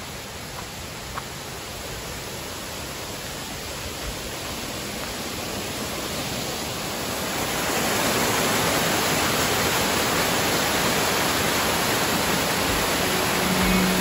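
Rushing water of a mountain waterfall and its rocky stream, a steady, even roar that grows louder over the first several seconds as it is approached, then holds steady.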